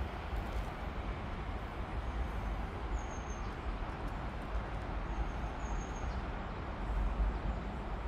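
Steady outdoor background noise, mostly a low rumble. A small bird gives faint short high chirps a few times, twice near the middle.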